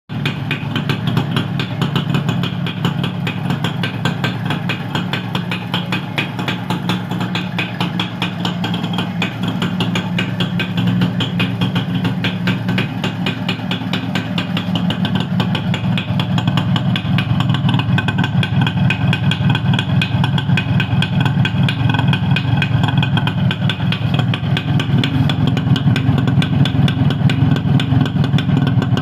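Yamaha YB100 motorcycle's single-cylinder two-stroke engine idling steadily, with a rapid, even exhaust beat.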